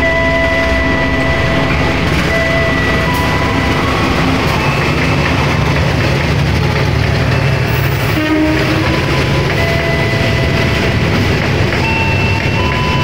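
Diesel-hauled passenger train passing along the platform: the locomotive and coaches make a loud, steady rumble on the rails. Thin high-pitched squealing tones come and go over it.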